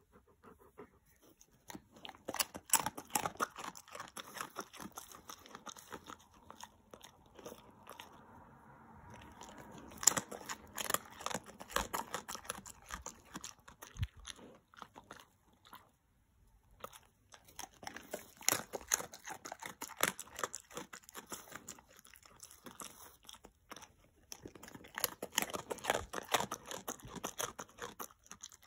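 Alaskan Malamute crunching hard dry dog treats, chewing in several spells of rapid crunches with short pauses between mouthfuls.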